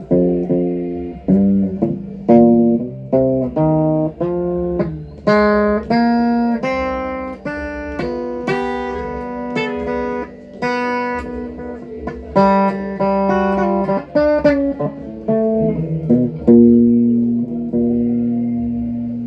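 Stratocaster-style electric guitar played as a melody of picked single notes and chords, ending on a note left ringing for the last few seconds.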